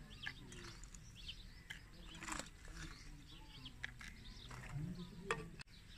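Faint bird chirps outdoors, with a few light clinks of ice cubes being dropped into a glass of juice.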